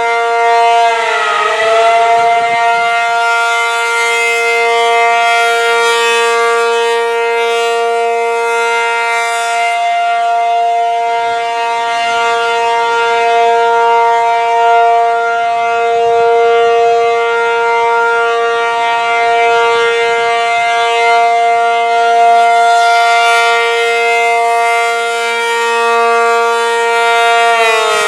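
ACA P-50 outdoor warning siren sounding a steady alert tone, with a brief dip in pitch about a second in and gentle swells in loudness. Near the end its pitch starts to fall as it begins winding down.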